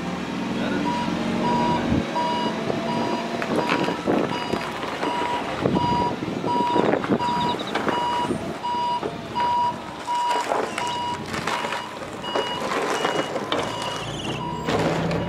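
Komatsu forklift's reversing alarm sounding a steady run of evenly spaced beeps as the forklift backs up, over its engine running. Scattered knocks and rattles are heard throughout.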